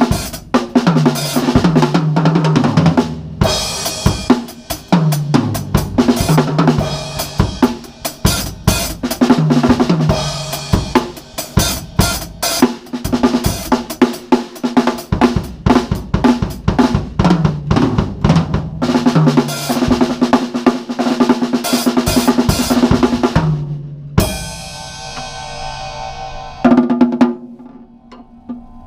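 Drum kit played with the snare wires engaged, heard through a GoPro's built-in microphone: rapid snare, bass drum and tom fills with cymbals. About 24 s in the playing stops on a crash left ringing, with one more hit a couple of seconds later.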